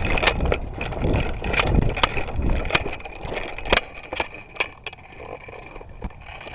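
Airsoft guns firing scattered single shots: sharp snaps at irregular intervals, about nine in all, fewer and fainter in the last couple of seconds.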